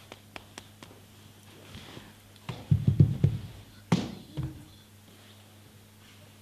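A few faint ticks, then a quick run of loud, dull low thumps, followed about a second later by a sharper knock and a softer one.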